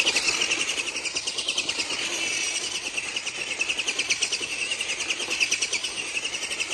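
Radio-controlled monster truck's motor running hard and buzzing high, wavering in pitch as the truck spins donuts.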